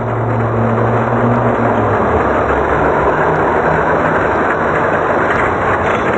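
Loud, steady engine-like roar with a low hum under a dense rushing noise, running as an edited-in racing sound effect over the toy car race.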